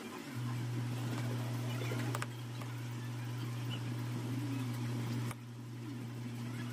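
Steady low electrical hum, dipping slightly about five seconds in, with a few faint plastic clicks and taps as a smartphone's frame is pressed and snapped shut by hand.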